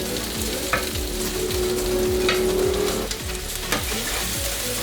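Butter sizzling in a pot as fried shrimp are tossed and stirred with green onions, jalapeño and garlic, with scattered scrapes and knocks of a utensil against the pot.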